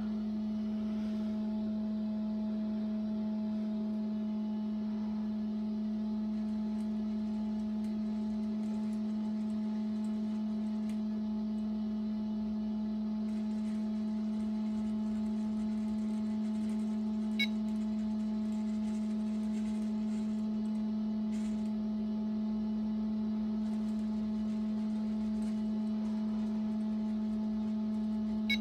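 Steady electric hum with one low, unchanging tone and a few higher overtones from the small motors slowly turning the 3D-printed battleship's turret mounts. Two faint short clicks, one about 17 seconds in and one at the very end.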